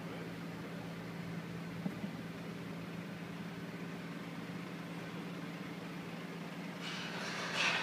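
Steady low machine hum with a constant pitch, like an idling motor. Near the end, a brief louder rush of noise swells and fades.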